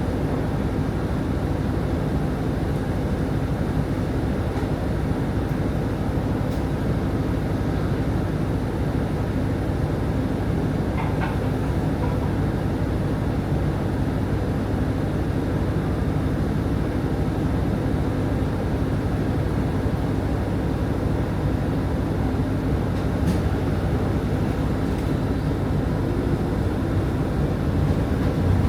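City bus running, heard from inside the cabin: a steady low engine and road rumble with a few faint clicks and rattles.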